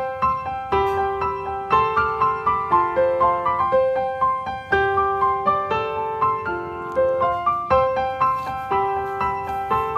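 Background piano music: a gentle melody of repeating notes.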